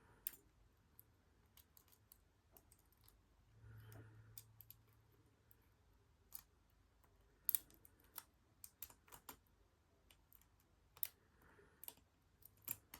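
Faint, irregular metallic clicks of a lock pick working the pin tumblers of a Squire LN4 padlock under tension, with a sharper pair of clicks in the middle.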